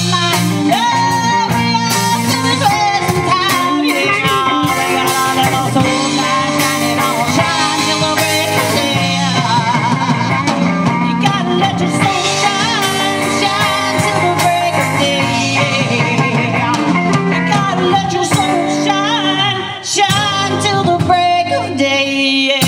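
Live rock band playing: electric guitar over bass guitar and drum kit, with wavering, bent notes. The loudness dips briefly near the end.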